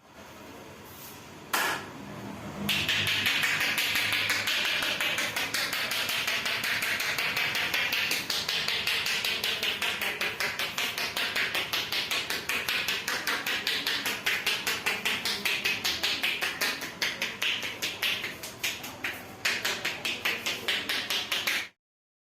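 Rapid, rhythmic hand tapping and slapping of a percussion massage, several strikes a second, with one sharp slap about a second and a half in; it stops abruptly near the end.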